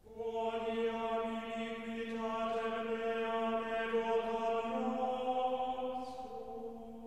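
Background music: a slow sung chant of long held notes that comes in abruptly and moves to new pitches about two-thirds of the way through.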